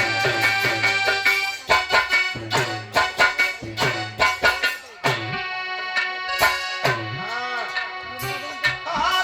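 Instrumental Indian folk music: sustained reed-keyboard tones over sharp, rhythmic drum strokes, with a melody that slides up and down near the end.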